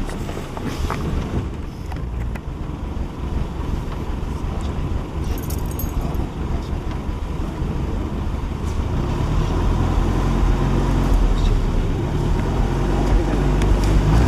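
A safari jeep's engine running steadily with a low hum that grows a little louder in the second half.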